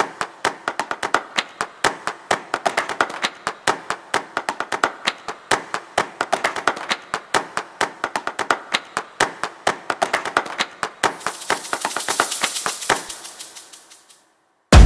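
Rapid, irregular crackling: sharp clicks about four or five a second, with a high hiss that swells near the end and then fades out.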